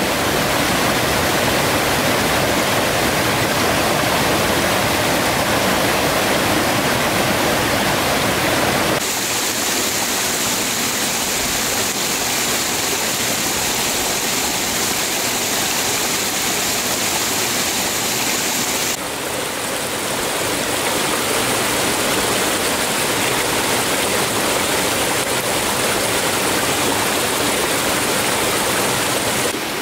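Rushing water of a shallow rocky stream and small cascade, a loud, steady rush whose tone changes abruptly twice, about a third and two thirds of the way through.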